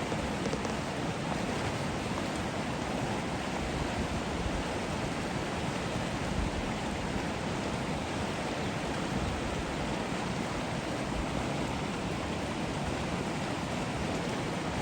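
Vallecito Creek rushing steadily, running high and fast with snowmelt.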